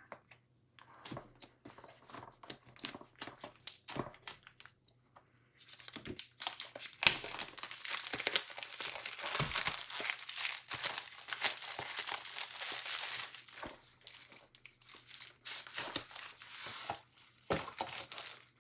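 Product box being unpacked by hand: scattered taps and clicks of handling for the first few seconds, then from about six seconds in a long stretch of packaging crinkling and tearing, thinning out to occasional handling noises near the end.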